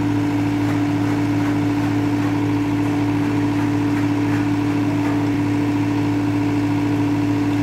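Boom truck's engine idling steadily, an unbroken hum with one strong steady tone.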